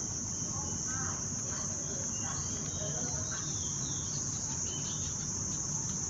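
Steady high-pitched drone of insects trilling outdoors, with a few faint short chirps now and then.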